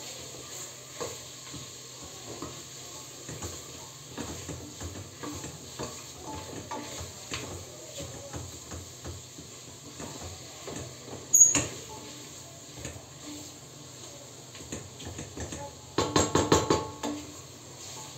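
A spoon stirring and scraping onions, meat and pepper paste as they fry in a stainless steel pot, with a faint sizzle under many small clinks. A sharp clink of the spoon on the pot comes about eleven seconds in, and a louder run of rapid clattering about sixteen seconds in.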